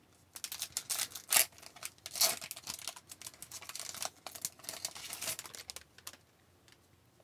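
A trading card pack wrapper crinkling and tearing as the pack is opened by hand, a run of quick crackles that stops about a second before the end.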